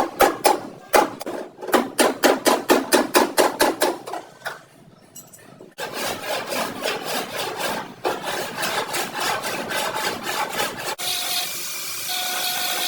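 Hand tool worked in quick rhythmic strokes on car bodywork, about five strokes a second, then a short pause and a denser run of strokes. A steady hiss starts near the end.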